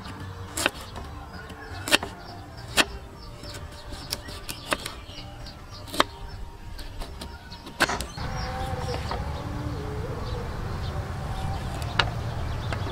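Large kitchen knife slicing galangal root and knocking down onto a thick wooden chopping board: sharp, single knocks at uneven gaps of one to two seconds, with a last cut near the end as limes are sliced.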